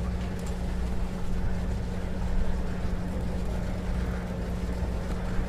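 Steady low motor hum with an even background hiss and no clear events.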